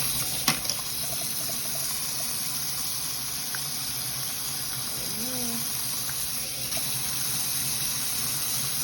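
Water running steadily from a kitchen tap, an even, continuous rush.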